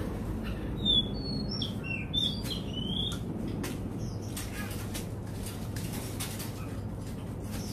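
Caged oriental magpie-robin giving a run of short whistled chirps and slurred notes in the first few seconds, with wing flutters and hops against the cage throughout. A steady low hum runs underneath.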